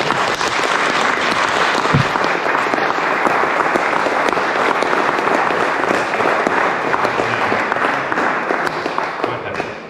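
Audience applauding, a dense patter of clapping that dies away near the end. A single low thump comes about two seconds in.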